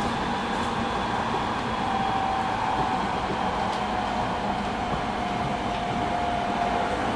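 Interior running noise of a JR East 209 series 3000 electric train, heard in its Mitsubishi GTO-VVVF motor car: a steady rumble with a single whine that slowly falls in pitch from about two seconds in.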